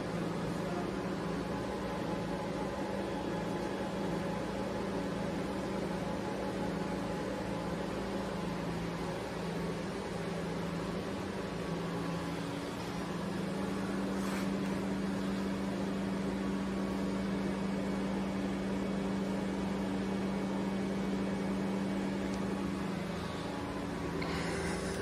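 Steady low electrical and mechanical hum from a powered-on Biglia B 750 CNC lathe standing idle with its spindle not turning. A second, slightly higher tone joins the hum about halfway through.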